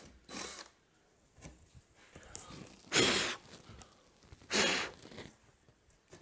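A person blowing hard through pursed lips to clear plasterboard dust from a freshly cut hole: a soft puff at the start, then two strong blows about a second and a half apart.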